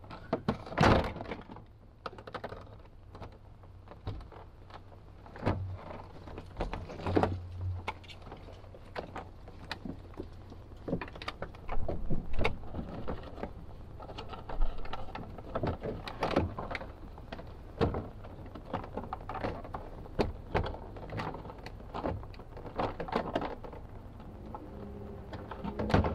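Irregular clicks, taps and knocks of a 2005 Chevy Silverado's hard plastic door trim and switch panel being handled and worked loose, with louder knocks about a second in and again around the middle.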